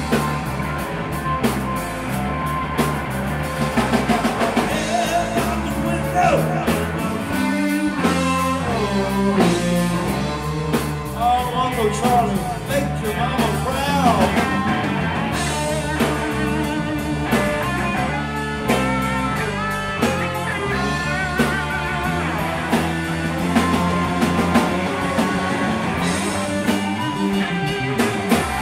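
Live blues-rock band playing an instrumental passage: a Stratocaster-style electric guitar plays lead lines with bent notes over electric bass and a drum kit.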